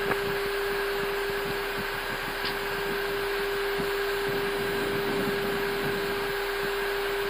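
Steady cockpit noise of an Airbus A320 taxiing in with both engines at idle: an even hiss with a constant hum under it.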